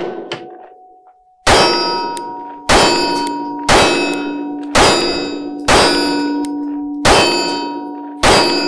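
Springfield Hellcat Pro 9mm pistol firing seven shots about a second apart, each followed by a long metallic ring, the clang of a steel target being hit.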